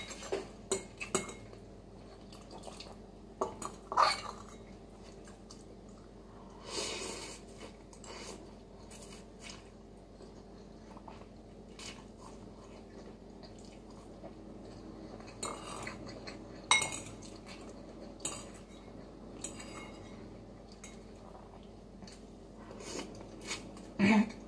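Metal fork and ceramic soup spoon clinking against a ceramic bowl while eating noodles: short sharp clinks every few seconds, with a quick cluster of louder ones near the end.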